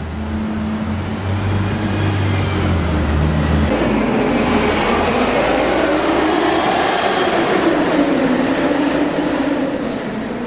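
A train passing: a low hum for the first few seconds, then a louder rushing rumble with wavering, squeal-like tones that rise and fall, easing off near the end.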